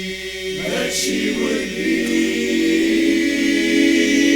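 Men's a cappella chorus singing sustained chords, with a brief hissing consonant about a second in; the held chord grows louder from about two seconds in.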